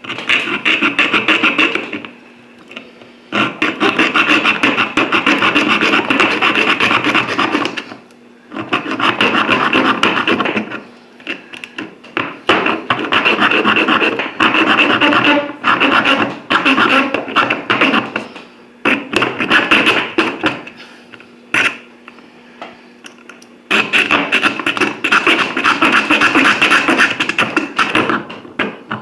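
Victorinox Swiss Champ metal saw blade sawing through a metal screw: fast rasping back-and-forth strokes in six runs of a few seconds each, broken by short pauses.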